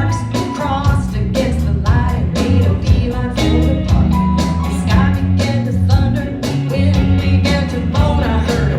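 Band playing an upbeat rock song between sung lines, with a steady drum beat under bass and guitar.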